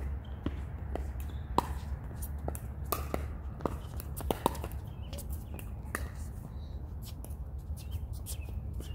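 Pickleball paddles striking the plastic ball in a rally: a series of sharp pocks, the loudest about one and a half and four and a half seconds in, thinning out after about five seconds as the point ends. A steady low rumble lies underneath.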